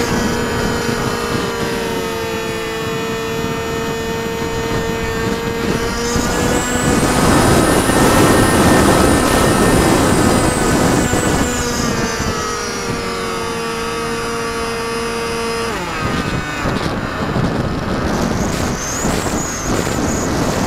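Radio-controlled model airplane's motor and propeller running at a steady pitch, heard from a camera on the plane with wind rushing over the microphone. About six seconds in the sound grows louder with a high whine that rises and falls; around sixteen seconds the motor tone cuts out, leaving only wind noise as the plane glides low, and it comes back at the very end.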